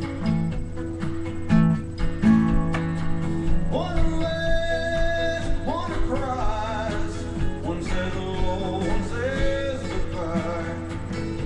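Acoustic guitar strummed in a steady rhythm, with a gliding melody line coming in over the chords about four seconds in.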